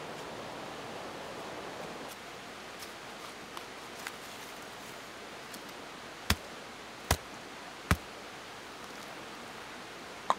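A short-handled metal digging tool striking into soil: a few faint scrapes and ticks, then three sharp strikes about a second apart past the middle and one more near the end, over a steady rushing background.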